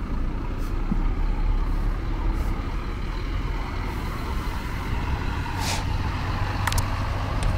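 Double-decker coach on a Scania K400 chassis pulling away slowly, its diesel engine running with a steady low drone. A short burst of air hiss from the pneumatic brake system comes about six seconds in, followed by a couple of sharp clicks.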